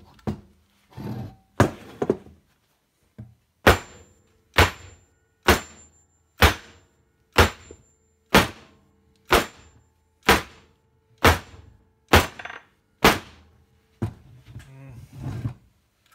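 Aluminium crankcase half of a Norton Atlas engine being banged down on a wooden workbench, about a dozen sharp knocks roughly one a second, to shake the main bearing out of its housing. The bearing stays stuck: the case is not hot enough to release it.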